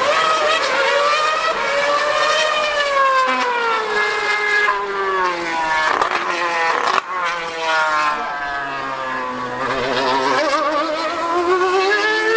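2013 Mercedes Formula One car's 2.4-litre V8 screaming at high revs. Its pitch climbs under acceleration and falls as it lifts off, several times over. A short sharp click comes about seven seconds in.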